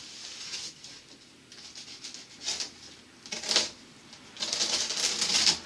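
Packing tape on a cardboard box being cut and torn off the cardboard: two short scratchy rips about two and a half and three and a half seconds in, then a longer rip lasting about a second near the end.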